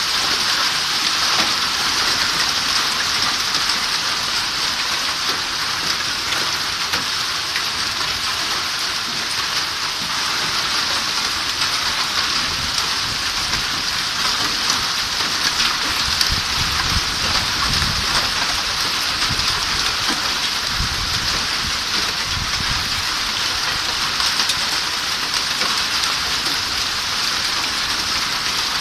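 Steady, even hiss with no pauses, joined by a few deep low rumbles about halfway through.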